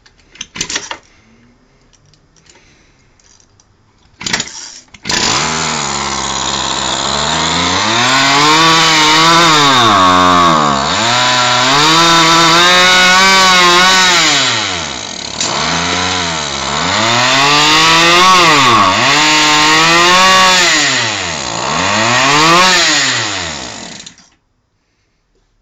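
Kawasaki 22.6cc two-stroke petrol model-boat engine running on a homemade carburettor. After two short bursts it catches about five seconds in, then revs up and down several times as the throttle is worked, and cuts off suddenly near the end.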